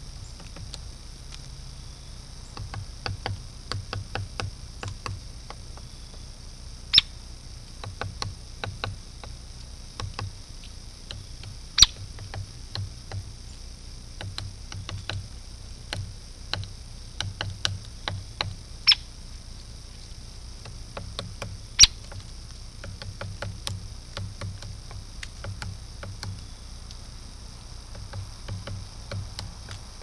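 Hairy woodpecker pecking and prying bark off a tree trunk: irregular light taps and ticks, with four sharper, louder ones spread through the stretch.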